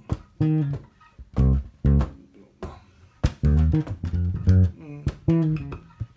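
Fender electric bass, tuned down a whole tone, playing a syncopated funk line fingerstyle near the bridge: short plucked low notes with gaps between them, mixed with percussive muted dead notes.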